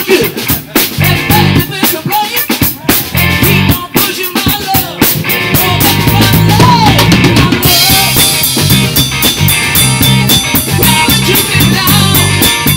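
Small live rock band playing an instrumental passage: drum kit, electric guitar and bass guitar with a steady beat. The cymbals get brighter and busier about eight seconds in.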